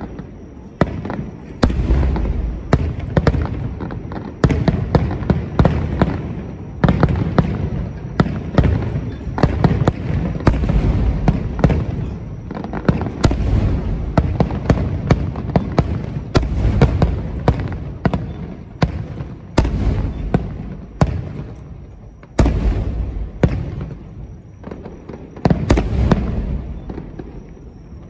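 Aerial firework shells bursting in a rapid barrage at close range: many sharp bangs and crackles, several a second at times, over a continuous low rumble that swells and fades.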